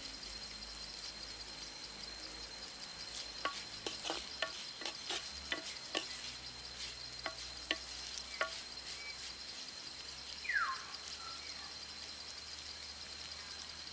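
Food frying in a pan while it is stirred, with a spoon clinking against the pan about a dozen times in the middle. A steady high insect drone runs underneath, and a short falling whistle comes about ten seconds in.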